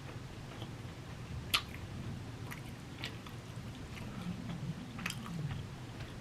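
Close-miked chewing of a mouthful of food, with a sharp click about one and a half seconds in and a few fainter clicks later.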